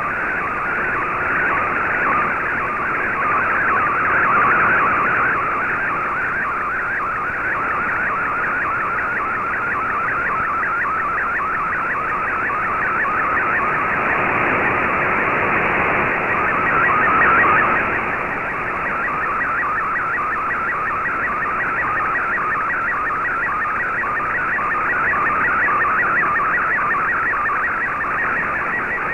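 Shortwave digital-mode picture transmission in MFSK64, received on an Icom IC-R8600: a continuous, fast, dense warbling tone over radio hiss as image data is sent line by line. It swells slightly in loudness a couple of times, with shortwave fading.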